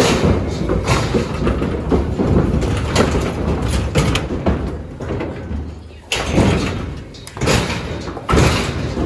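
Continuous loud clattering and banging, like doors or gates sliding and slamming, with many sharp knocks; it dips briefly about six seconds in and again near the end before picking back up.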